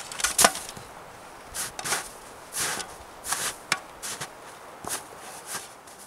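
Footsteps on dry forest ground: about ten short, uneven steps.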